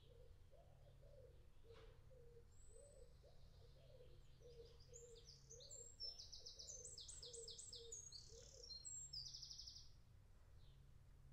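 Faint birdsong: a pigeon cooing in low, wavering repeated notes, and from about five seconds in a small songbird's fast, high trill of repeated notes lasting several seconds. A faint steady low hum runs underneath.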